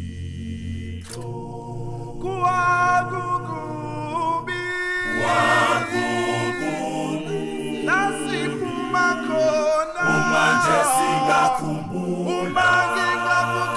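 Male a cappella gospel group singing in close harmony, with no instruments. A sustained low bass line runs under moving upper voices, and the chords change every second or two.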